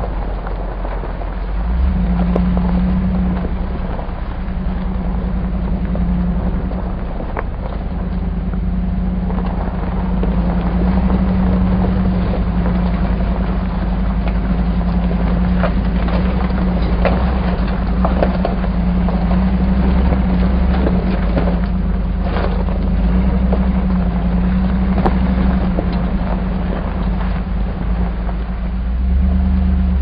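Hummer SUV engine running steadily at low speed, heard from inside the cabin, with scattered rattles and knocks from driving over a bumpy dirt and gravel road.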